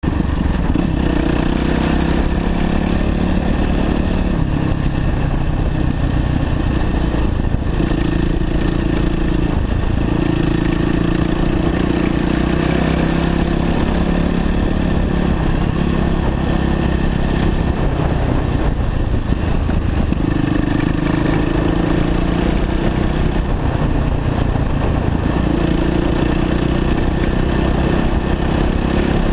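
2009 Yamaha YZ450F dirt bike's single-cylinder four-stroke engine running at low revs as the bike descends a dirt road, the revs rising and easing several times. Heard close up from the rider's position.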